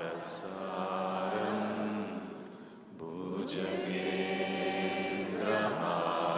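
A mantra chanted in long, drawn-out notes, broken by a short pause about three seconds in before the chant picks up again.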